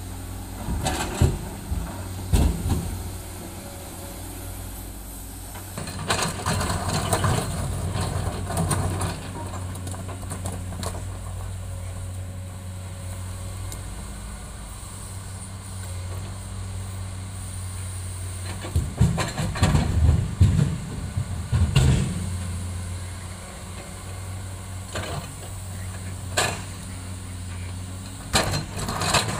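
Komatsu hydraulic excavator at work, its diesel engine running with a steady low drone, while heavy rocks clatter and clunk as the bucket dumps into the steel bed of a dump truck and digs into a pile of broken rock. The loudest knocks come in a cluster in the first couple of seconds and again about twenty seconds in.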